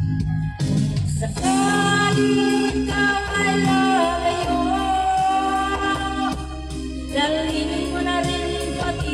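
A woman singing a Tagalog love song into a microphone over a backing track, coming in about a second and a half in and holding long notes, with a new phrase starting near the end.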